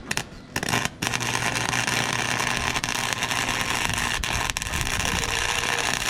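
Flux-core wire-feed welder arc: a few short stuttering starts, then about a second in a steady crackling, frying sizzle as a bead is laid, with a faint low hum underneath.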